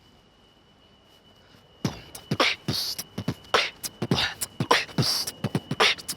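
Beatboxing: after about two seconds of quiet, a vocal beat starts, with low kick sounds and hissy snare and hi-hat sounds in a steady rhythm.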